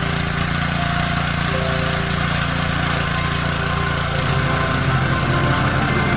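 Honda GX160 single-cylinder four-stroke petrol engine of a Tasco BK 55H mini tiller running steadily. Its note grows a little louder and heavier about four seconds in.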